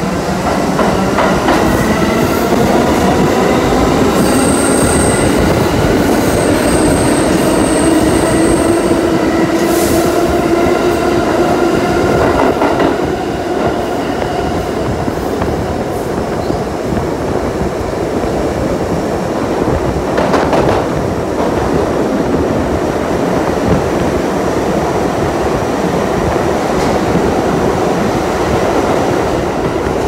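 NYC Subway 1 train running through the tunnel, heard from inside the car: steady wheel and rail noise under a whine that slowly rises in pitch over the first dozen seconds as the train gathers speed. A high, thin wheel squeal comes in from about four to nine seconds in.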